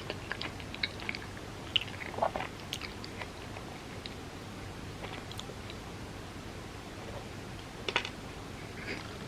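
Close-miked chewing: a person eating, with a quick run of small mouth clicks over the first three seconds, then a lull, and a sharper click about eight seconds in.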